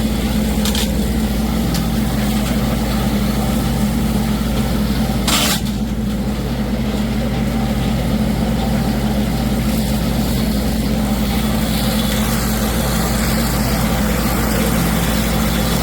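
LS XR4040 compact tractor's diesel engine running steadily under load while it pulls a PTO-driven drum mower through thick hay. A single brief knock sounds about five seconds in.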